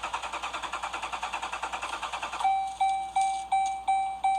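Dashboard warning chimes in a 2013 Jeep Grand Cherokee, sounding as it is switched off but will not shut down. A rapid chattering beep at about eight a second changes, about two and a half seconds in, to a louder single-pitch chime striking about three times a second.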